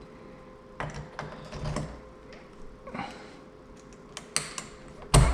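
Keypad door lock parts being handled and fitted into the door: scattered small clicks and taps at uneven intervals, with a louder knock near the end.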